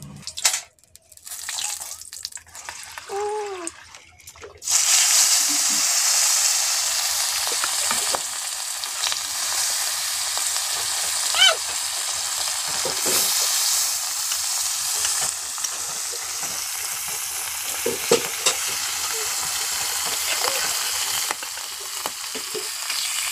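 Fish pieces frying in hot oil in an iron kadai: a steady sizzle that starts suddenly about five seconds in, after a few faint knocks. Now and then the ladle clinks against the pan as pieces are turned and lifted out.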